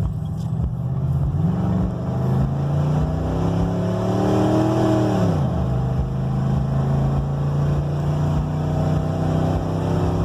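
1999 Ford F-150's engine pulling away, rising in pitch for a few seconds, then falling sharply about five seconds in and settling to a steady run.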